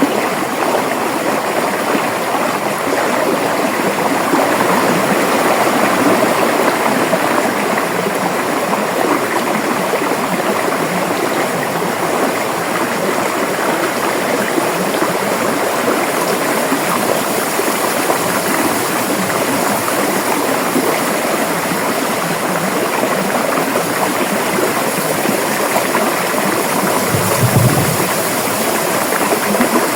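River water flowing, a steady rushing and babbling. There is one brief low thump near the end.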